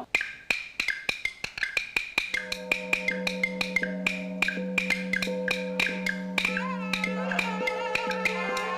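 Qinqiang opera accompaniment starting up: a wooden clapper (bangzi) is struck in sharp clicks that come faster and faster. About two seconds in, a steady held low note joins it, and a wavering higher melody comes in after about six seconds.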